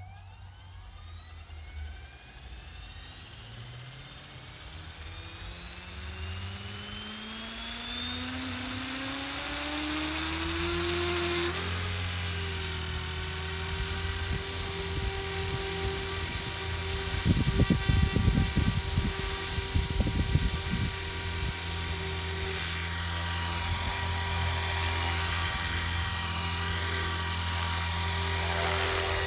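Electric RC helicopter spooling up: the motor and rotor whine rises steadily in pitch for about eleven seconds, then holds steady at flying speed. A few seconds of louder, pulsing rotor noise come around the middle.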